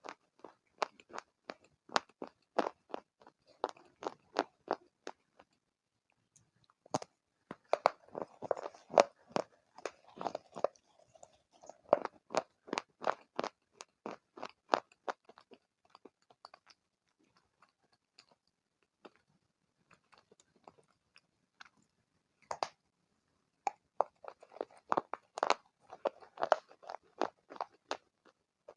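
Close-up crunching and chewing of brittle black shale: sharp cracks come in quick clusters as pieces are bitten and ground between the teeth, with a sparse lull of several seconds past the middle before a last dense burst of crunches.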